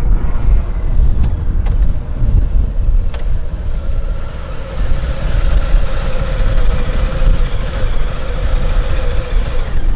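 Harley-Davidson Heritage Classic's V-twin engine as the motorcycle rides up at low speed and stops, then idles with a steady hum that cuts off near the end.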